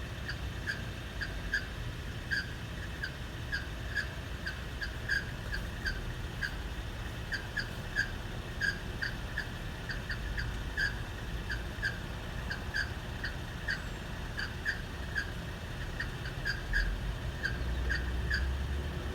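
Squeaking from the viscous fan clutch of a Lexus GX470's 2UZ-FE V8: short, high chirps repeating irregularly, two to four a second, over the low hum of the idling engine.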